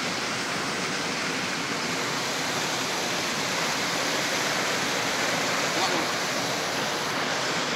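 A steady rushing hiss with no breaks or distinct events.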